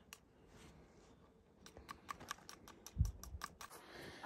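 Flint and steel being struck again and again to throw sparks: quick sharp clicks, about six a second, in two runs with a pause between, and a single low thump about three seconds in.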